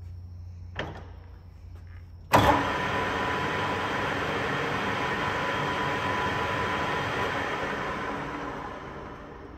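Charles CH-430 lathe started up: a lever click, then a sudden clunk as the 5 hp spindle drive engages. The headstock gearing and chuck then run steadily with a constant gear whine, dying away gradually near the end.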